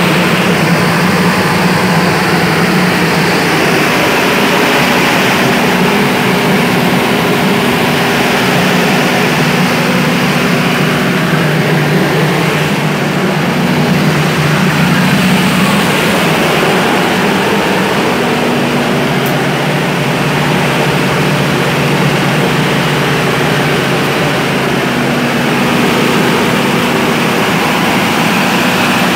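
75 kVA diesel generator set running steadily at constant speed, its engine hum loud and close from inside the open enclosure.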